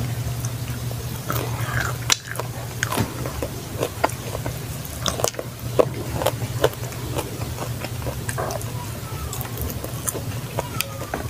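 Close-miked mouth sounds of someone eating: biting and chewing food, with frequent sharp wet clicks and smacks, over a steady low hum.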